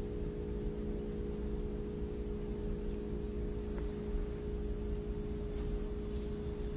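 A steady hum made of several fixed low tones over a faint rumble, unchanging throughout.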